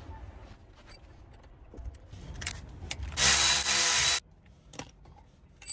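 Milwaukee cordless ratchet whirring steadily for about a second, about three seconds in, as it undoes a brake caliper bolt. Before it come a few faint clinks and rustles of tool handling.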